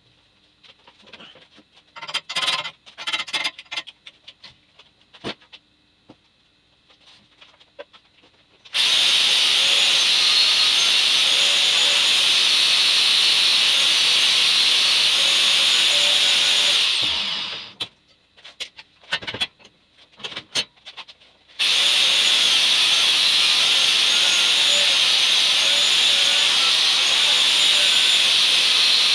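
Handheld angle grinder grinding a steel tube frame, a loud steady grind with a whine that wavers as the disc is loaded. A few light clanks of handling come first; the grinder runs for about eight seconds, spins down, a few more clanks follow, and then it starts grinding again.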